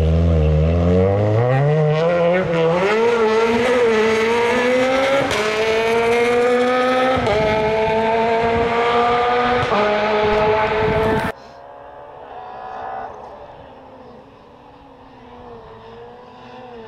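Peugeot 208 rally car's engine pulling hard out of a corner, its pitch climbing steadily, with a step at each of several gear changes. About two-thirds of the way through it cuts off suddenly, leaving a faint, distant engine.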